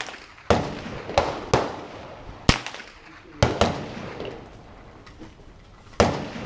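Gunshots on a shooting range: about seven sharp reports at irregular intervals, each followed by a short echo, some louder and some fainter.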